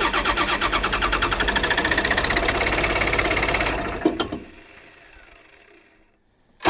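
Samsung excavator diesel engine cranked over by its starter motor in a fast, even rhythm without catching; its fuel shutoff valve is staying closed. The cranking stops with a click about four seconds in and winds down, and starts again right at the end.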